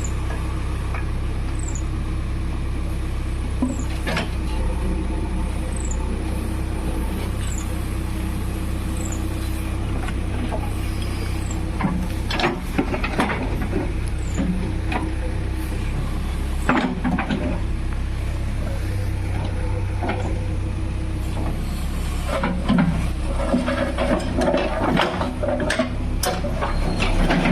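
JCB 3DX backhoe loader's diesel engine running steadily under work, with scattered knocks from the machine, thickest in the second half.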